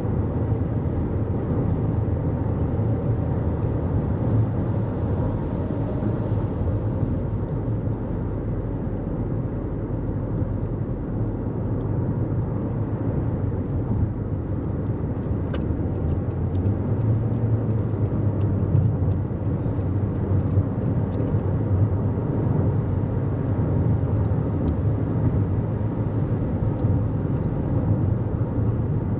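Steady road noise of a 2024 Toyota Corolla Cross cruising at freeway speed: an even, low rumble of tyres on pavement and engine, unchanging throughout.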